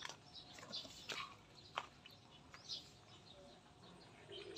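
Faint, scattered short bird chirps, with a couple of soft clicks.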